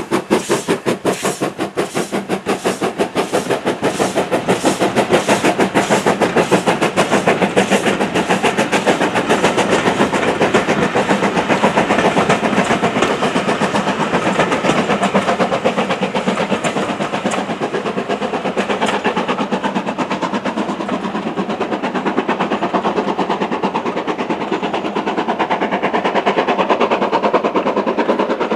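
LMS Stanier 8F 2-8-0 steam locomotive No. 48624 working a passenger train past, its exhaust beating in a fast, even rhythm that is crispest in the first several seconds. The coaches then roll by with a steady clickety-clack of wheels over the rail joints.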